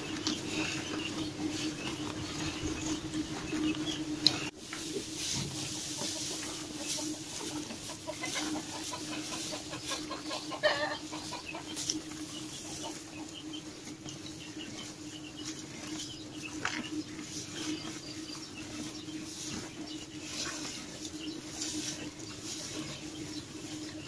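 Cattle pulling at and chewing dry straw at a feed rail, with short rustling crackles throughout over a steady low hum. A chicken clucks a few times around the middle.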